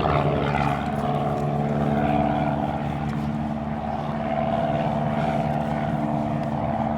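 A propeller plane's piston engine droning steadily overhead, its pitch holding even.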